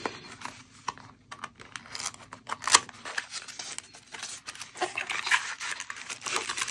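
A small cardboard box being handled and slid open: scraping and tapping of card with a sharp click about two and a half seconds in, then denser rustling of the plastic parts bag inside near the end.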